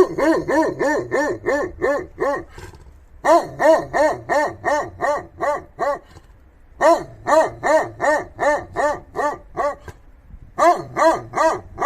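Polish Tatra sheepdog barking in quick runs of about three to four barks a second, four runs in all with short pauses between them.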